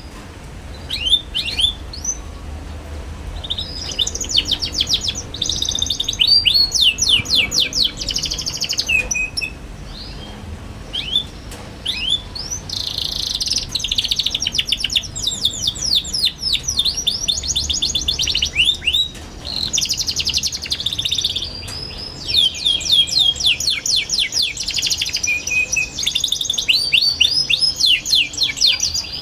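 Young domestic canary singing a fast twittering song: rapid trills and high chirps strung together in phrases, with brief pauses.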